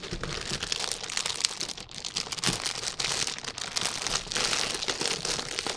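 Foil-lined Lay's potato chip bag crinkling continuously as it is handled and folded closed by hand.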